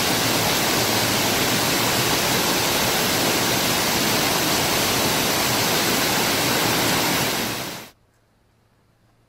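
Waterfall pouring down a rock face into a pool: a loud, steady rush of falling water that cuts off suddenly near the end, leaving near silence.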